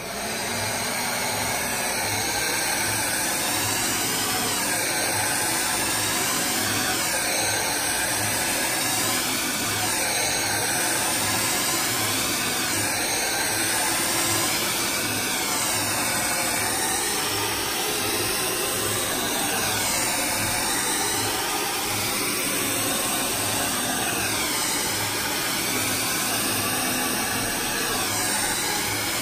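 DryBar Buttercup hair dryer switching on abruptly and running steadily, a constant rush of air whose tone sweeps up and down every few seconds as the dryer is moved along the hair.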